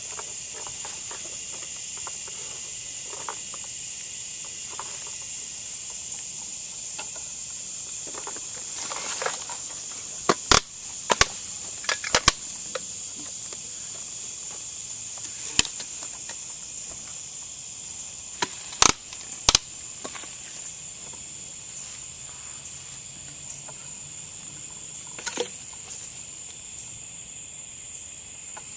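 Steady, high-pitched insect trilling, with a handful of sharp, loud clicks cutting through it: a cluster about ten to twelve seconds in, a pair near nineteen seconds and a couple more later.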